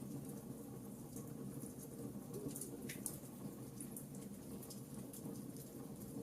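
Wood fire burning in a fireplace: a steady low rumble of the flames with scattered small crackles and pops, one a little sharper about three seconds in.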